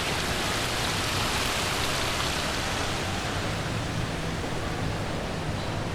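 Steady rushing noise like falling or splashing water, without pause.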